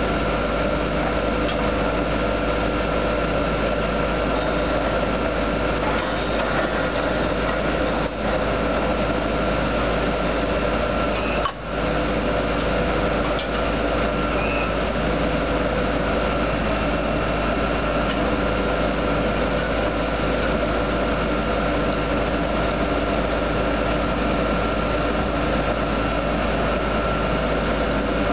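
Drilling equipment engines running steadily: a constant drone with a steady high whine over it, dipping briefly about eleven and a half seconds in.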